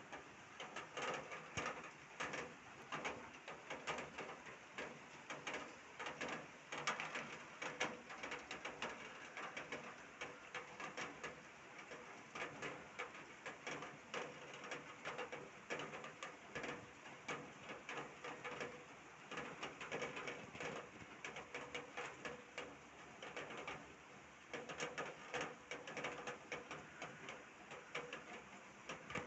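Downpour of rain, its drops heard as a dense, irregular stream of close ticks that goes on without a break.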